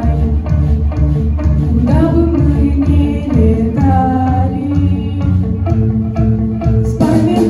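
Music: a song performed with singing over a continuous instrumental backing track.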